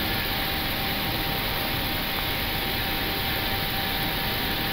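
Steady rushing flight-deck noise of an Airbus A321 in its initial climb after takeoff: airflow and engine noise heard inside the cockpit, with faint thin steady tones underneath.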